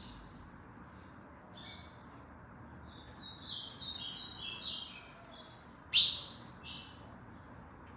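Ultramarine grosbeak (azulão) singing: a short call, then a warbled phrase of whistled notes stepping up and down. About six seconds in comes a loud sharp chip, followed by a softer one.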